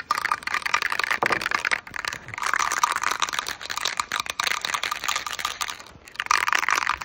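Rain falling on a steel shed roof: a dense crackle of countless small impacts. It eases briefly about two seconds in and again near the end.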